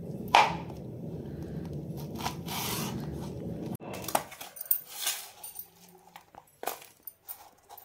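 Kitchen knife slicing through green chillies on a cutting board, with a sharp knock about a third of a second in; the sound stops abruptly just before four seconds. Scattered light taps and clicks follow as the cut chillies are gathered up by hand.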